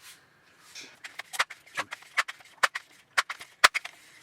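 Crosman 362 pump air rifle being readied for a shot: a quick series of irregular sharp clicks and knocks from its mechanism and handling.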